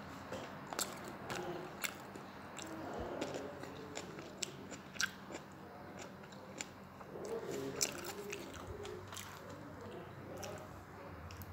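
Close-up chewing of a person eating spare ribs, with many sharp mouth clicks and smacks and a couple of low murmurs.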